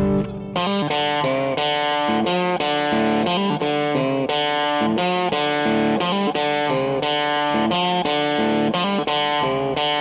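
Background music: a guitar picking out a steady run of plucked notes, about three a second.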